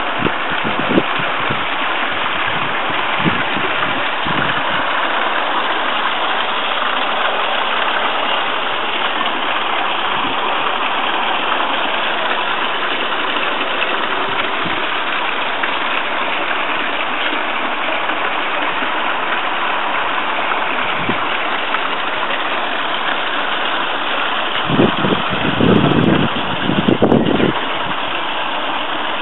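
Water running steadily from a garden koi pond's fountain and waterfall, with two short, louder, deeper noises near the end.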